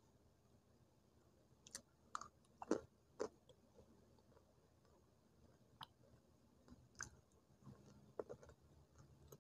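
Slate pencil sticks being bitten and chewed close to the microphone: a quick run of four sharp, dry crunches about two seconds in, then a few single crunches later on.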